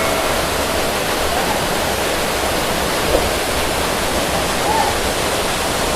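Steady rush of a monsoon waterfall: an even, unbroken noise of falling water.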